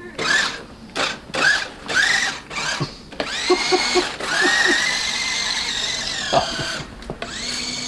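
A small motor whining at one steady pitch for about three and a half seconds, after a run of short squeaky sounds and clicks.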